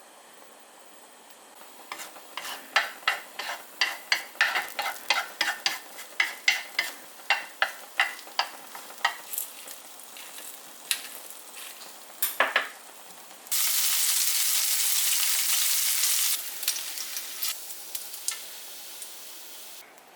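Eggs being beaten in a bowl, a quick run of clicks about three a second, then a loud sizzle that starts suddenly about two-thirds of the way in as food goes into a hot pan, easing off to a quieter frying hiss near the end.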